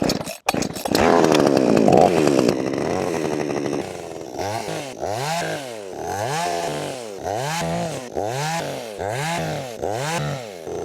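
NAC two-stroke chainsaw started cold on the choke: a couple of sharp pulls, then the engine catches about a second in and runs high. From about four seconds in, its engine speed rises and falls in an even rhythm, roughly once every three-quarters of a second.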